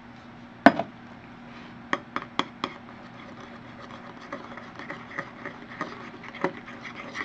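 A utensil clacking and scraping against a bowl while shaving cream is stirred into a dyed glue mixture for slime. A sharp clack comes about a second in and a few clinks a second later, then lighter, more frequent clinks and scraping as the stirring goes on.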